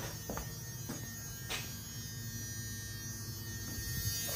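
12-valve Cummins 5.9 L inline-six diesel idling steadily just after a cold start, with a few sharp clicks on top.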